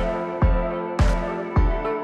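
Background music with a steady beat of deep thumps, about two a second, under held electronic chords.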